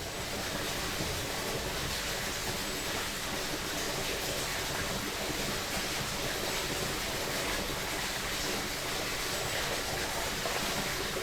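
A creek flowing steadily, an even rush of water with no pauses or changes.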